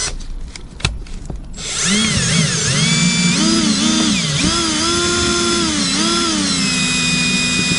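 Cordless DeWalt drill driving the winder of a windshield fiber-line cutout tool, its motor whine rising and falling in pitch as the trigger and the load on the line change while the line cuts the windshield out. A few knocks and clicks come before the drill starts, about one and a half seconds in.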